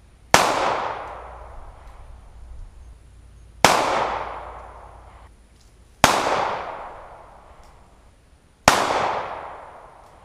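Four single 9mm pistol shots from a Zastava M88A, fired slowly about two to three seconds apart, each followed by a long fading echo.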